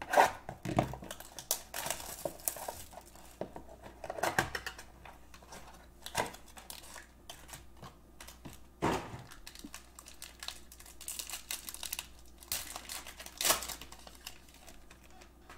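Foil wrapper of a Panini Crown Royale trading-card pack crinkling as it is torn open, with irregular clicks and taps as the cards are handled. The loudest crinkles come right at the start and again around four, nine and thirteen seconds in.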